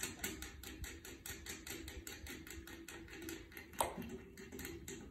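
Faint, rapid clicking, about six clicks a second, with one louder knock about four seconds in, as a fixing nut is hand-tightened under the back of a toilet bowl during installation.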